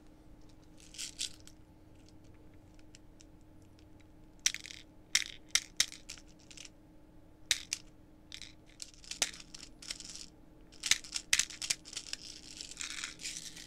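Steel BBs being poured from a plastic speedloader into the magazine of a 1911-style BB pistol: irregular sharp metallic clicks and short rattles, with a denser rattle near the end.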